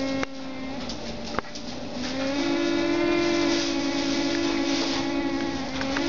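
Blizzard wind whistling through the gaps of an old house: a steady moaning whistle over a rushing hiss, which steps up higher and louder about two seconds in. A single sharp click about a second and a half in.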